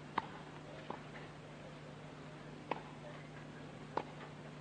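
Tennis ball being struck and bouncing on a hard court: four sharp pops spaced one to two seconds apart, over a steady low hum.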